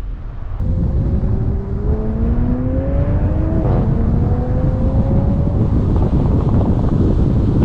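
Toyota A90 Supra's turbocharged B58 inline-six accelerating hard, its pitch rising, breaking at a gear change about halfway through, then climbing again more slowly. Near the end it gives way to a rapid, irregular crackle of exhaust pops over heavy wind rumble.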